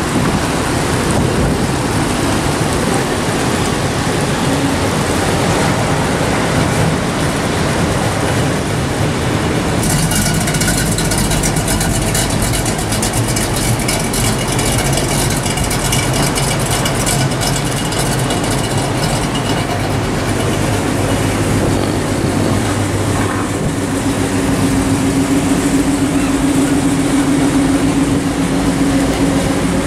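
Classic cars cruising slowly along a wet wooden boardwalk: engine rumble over the hiss of tyres on wet boards and rain. A steadier, louder engine drone comes in near the end as a red Chevrolet Chevelle rolls past.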